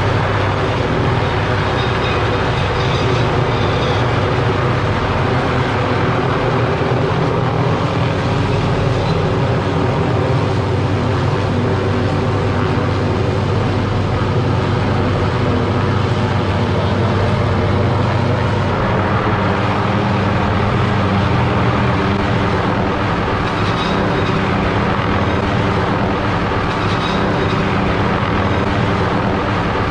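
Tree-trimming helicopter running steadily overhead, its rotor and engine noise mixed with the drone of the big engine-driven rotary saw hanging beneath it on a cable.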